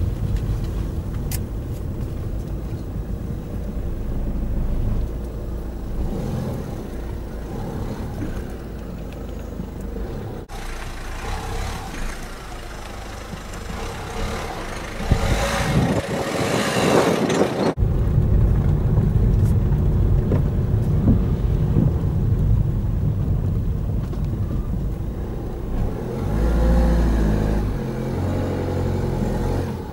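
Car engine and road noise heard from inside the cabin as the car drives slowly along a lane. In the middle there is a break of several seconds of outdoor noise that swells louder and then cuts off suddenly, before the engine rumble returns.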